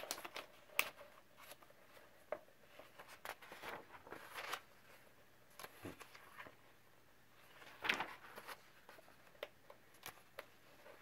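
Pages of a paperback coloring book being turned and smoothed by hand: soft paper rustles and swishes, with sharper page flicks about a second in and again around eight seconds in.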